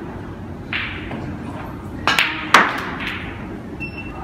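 Snooker balls clicking as a shot is played. A cue tip strikes the cue ball about a second in, two sharp clicks of balls colliding come a little after two seconds in, and a softer knock follows near three seconds as a red is potted.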